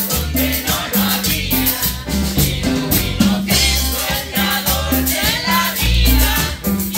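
Live worship band playing: hand-played congas, drum kit and electric guitars over a repeating low bass pulse, with several singers singing into microphones.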